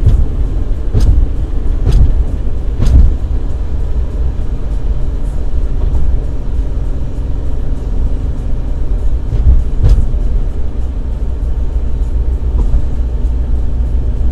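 Inside a Maruti Alto's cabin at highway speed, the engine, tyres and road make a steady low rumble. Dull thumps come about a second apart for the first three seconds, and one more comes about ten seconds in.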